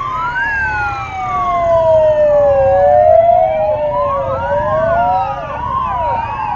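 Several fire-brigade sirens wailing at once, slow rising-and-falling sweeps overlapping one another. About four and a half seconds in, a faster, quick-repeating yelp joins them. Under them runs the low rumble of the passing motorcycles' engines.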